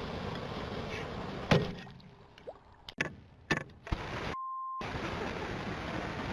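Steady wind-like rushing on the microphone, broken about a second and a half in by one sharp, loud strike, plausibly a pickaxe hitting lake ice, followed by a few light clicks. A little past the middle, the sound cuts out completely for half a second under a short steady beep.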